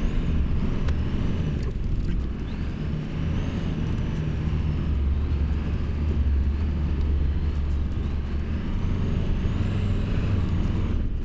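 Pickup truck driving slowly along a paved cart path, heard from inside the cab: a steady low engine and road rumble.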